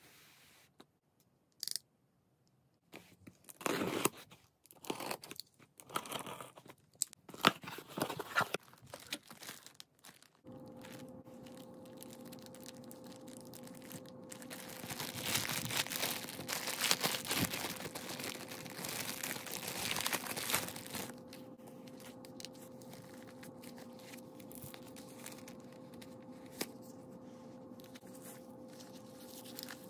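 Packaging being handled and opened: sharp scattered tearing and scraping of a cardboard box at first, then a clear plastic wrapper crinkling as it is pulled off a webbing bag strap. The crinkling is densest about halfway through and quieter handling follows.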